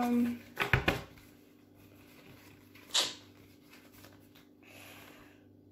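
A cluster of knocks about a second in and one sharp click about three seconds in, over a steady low hum; the end of a held voice sound at the very start.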